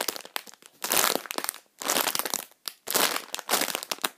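Crinkly plastic packaging of a foam squishy toy crackling as the toy is squeezed through the bag, in several separate bursts.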